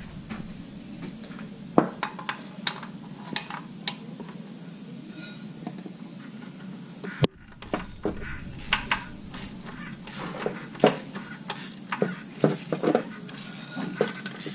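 Irregular metallic clinks and taps of a hand wrench and tools working transmission bolts under the car, as a bolt is tightened up.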